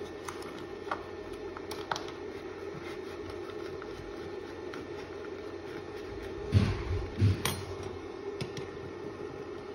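Hands handling and folding seam tape on a vinyl plank floor: scattered small clicks and crinkles, with two dull thumps about six and a half and seven seconds in, over a steady low hum.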